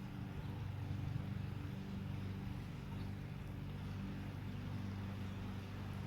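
A motor running steadily, a low even hum without changes.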